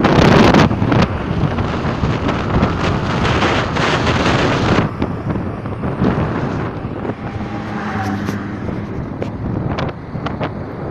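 Wind buffeting the microphone of a phone filming from a moving car, over the car's road noise, with the loudest gusts at the start and about four seconds in.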